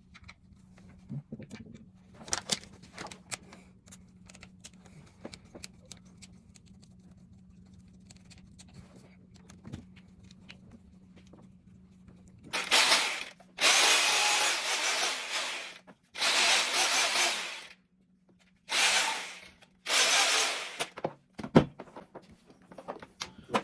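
Light clicks and handling of the tool, then a Bosch hammer drill switched on and run in five short bursts of one to two seconds each, starting about halfway through: a test run after its repair.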